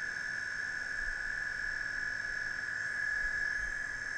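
DJI Mavic brushless drone motor spinning a cooling-fan impeller at a steady speed: a steady high-pitched whine, running quietly.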